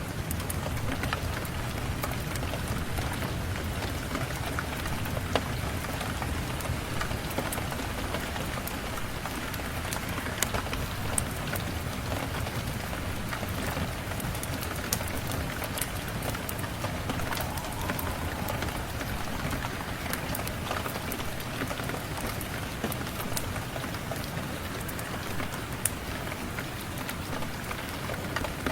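Steady rain, heavy at the low end, with scattered sharp crackles from a fireplace.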